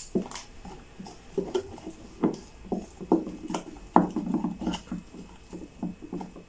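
A spoon stirring thick bhajia batter in a glass bowl, with irregular knocks and clicks against the glass and soft wet squelching. A low hum is heard briefly around the middle.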